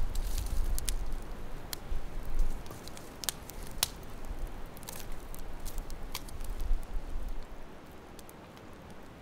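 Wood campfire crackling, with irregular sharp pops as split logs are laid on the burning fire. A low rumble sits underneath and dies away about seven seconds in.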